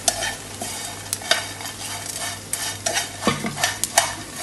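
A utensil stirring and tossing small dried fish in a frying pan as they roast crisp, with irregular scrapes and light clicks against the pan and the brittle fish.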